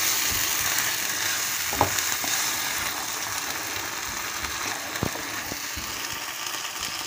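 Crushed tomato sizzling as it fries with onion and garlic in oil in a frying pan, stirred in with a silicone spatula. The sizzle eases a little as it goes, with a couple of light knocks of the spatula against the pan.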